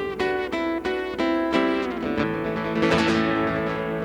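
Acoustic guitar playing the closing bars of a song: a run of picked notes, then a fuller strummed chord about three seconds in that rings on.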